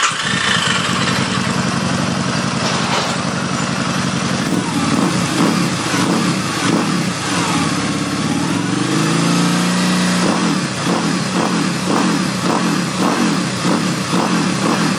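Harley-Davidson V-Rod Muscle's liquid-cooled V-twin running through a Roncar Scorpion aluminium aftermarket sport exhaust, just after start-up. It runs steadily at first, then is revved several times, the pitch swelling and falling about halfway through, with a run of quick, even pulses near the end.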